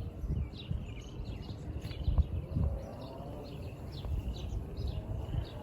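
Small birds chirping, many short high notes repeating over and over, over a low uneven rumble.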